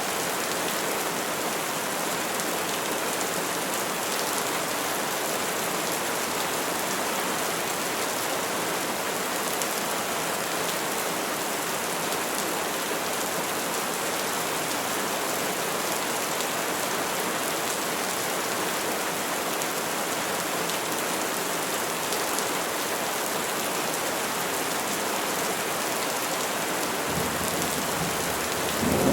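Steady rain falling on trees, an even hiss. Near the end a low rumble of thunder begins to build.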